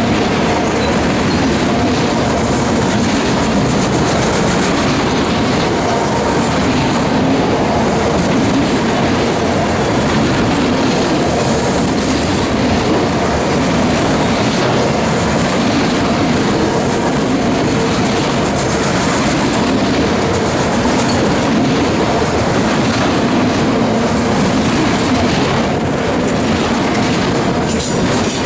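A freight train of autorack cars rolling past close by: a steady, loud rumble of steel wheels on rail with clickety-clack over the rail joints.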